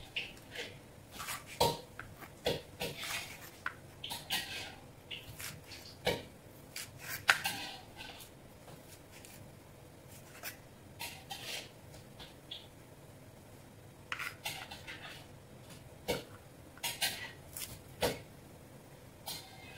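Kitchen knife slicing through bok choy on a plastic cutting board: irregular crisp cuts through the stalks and leaves, with the blade tapping the board, broken by a couple of short pauses.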